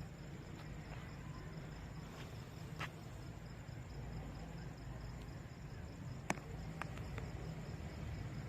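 Crickets chirping in an even, rapid pulse with a steady high trill, over a low rumble. A few sharp clicks cut through, the loudest about six seconds in.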